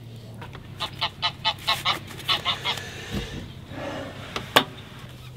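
Geese honking: a quick run of about a dozen short honks over two seconds. A single sharp knock comes near the end.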